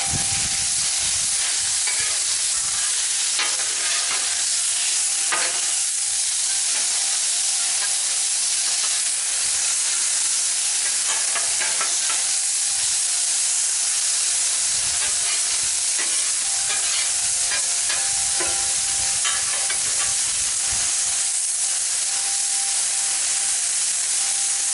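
Stir-fry sizzling steadily on a Blackstone flat-top griddle, with frequent short clicks and scrapes of spatulas on the steel as the food is turned.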